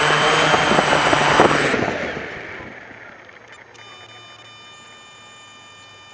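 Quadcopter's electric motors and 11x4.7 APC propellers whirring as it sets down, with a bump about a second and a half in. The whir then winds down and stops, the props spinning down after landing.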